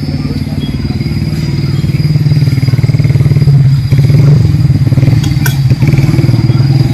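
A vehicle engine running close by with a fast, even pulse. It grows louder over the first few seconds, then holds steady.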